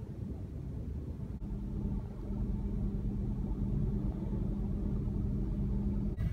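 Low, steady rumble of road traffic and engines heard from inside a car, with a steady engine hum that sets in about a second and a half in.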